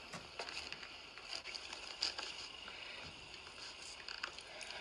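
Faint clicks and soft squishing of a frosted chocolate cake being cut with a knife and handled by hand.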